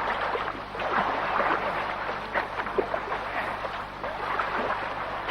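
Water splashing and churning in a steaming hot spring, a steady wash of water noise broken by irregular small splashes.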